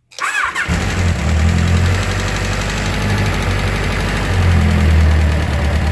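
Kawasaki Concours motorcycle's inline-four engine started, catching about half a second in, then idling steadily. It still carries an unwanted mechanical noise that a fresh valve adjustment has not cured.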